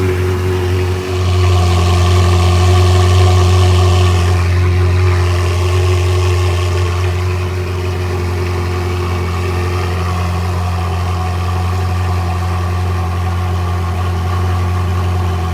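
Ferrari 360's 3.6-litre V8, fitted with a Gruppe M air box, idling on a cold start. About a second in it gets a little louder for about three seconds, then settles to a steady idle.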